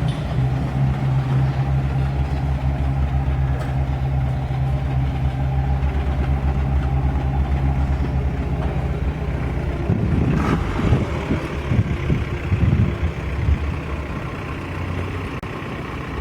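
GAZ-21 Volga's four-cylinder engine idling with an even, steady rumble. About ten seconds in the sound goes uneven for a few seconds, then settles back to a steady idle.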